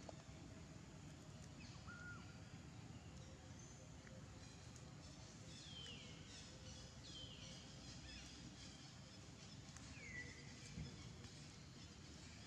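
Quiet outdoor background noise with a few faint bird calls: short chirps that slide downward in pitch, two about halfway through and another near the end.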